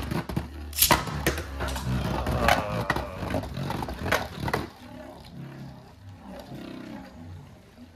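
Two Beyblade Burst spinning tops, just launched, clashing against each other and the plastic stadium with sharp clicks and knocks, a loud hit about a second in. After about five seconds the clashing stops and a quieter, low wavering hum of the tops spinning on the stadium floor remains.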